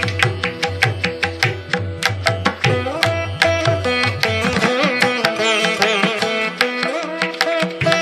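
Carnatic-style instrumental music: a plucked string instrument playing a quick melody with sliding, bending notes over hand-drum strokes. The deep drum notes drop out briefly about halfway through.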